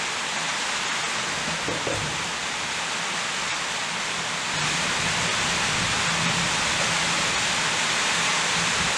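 Steady, even hiss, a little louder from about halfway through.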